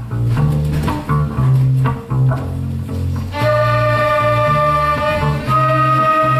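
A children's school orchestra of violins, clarinets and flutes playing: short notes over a low bass line, then sustained wind and string notes join in about three and a half seconds in.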